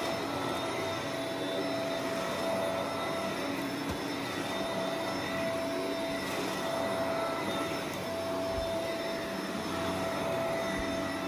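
Upright vacuum cleaner running steadily while being pushed back and forth over carpet, its motor giving a constant whine.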